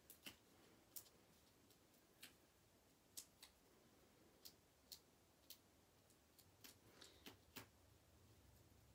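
Faint, irregular light clicks and ticks of fingers handling cardstock and pressing small foam adhesive dimensionals onto a paper layer, about a dozen in all, with near silence between them.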